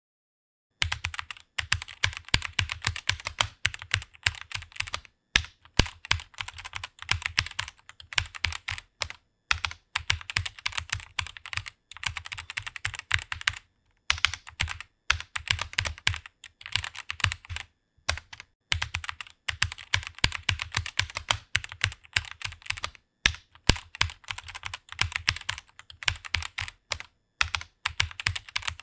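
Fast typing on a computer keyboard: a dense run of key clicks starting about a second in, broken by brief pauses every few seconds.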